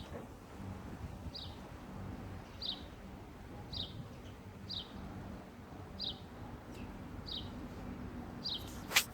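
A parrot gives short, high chirps over and over, about one a second, each dropping slightly in pitch. Near the end there is a single sharp click.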